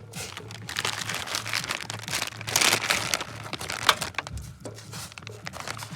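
Plastic packaging of instant ramen noodles being handled, crinkling and crackling irregularly with many sharp crackles.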